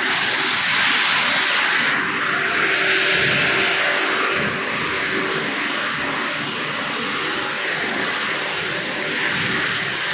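PVC cable-compound pelletizing line running at its pellet discharge: a steady rushing noise with a faint steady hum. The high hiss dulls about two seconds in.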